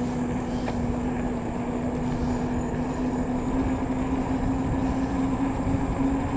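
Electric bike's motor whining at a steady pitch while riding, its pitch edging slightly higher near the end, under the rush of wind buffeting the microphone and tyre noise on pavement.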